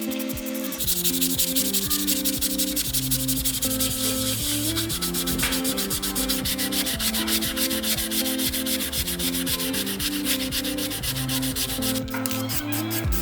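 Sanding: a rough, fast rubbing noise that starts about a second in and stops abruptly near the end, over background music with a melody.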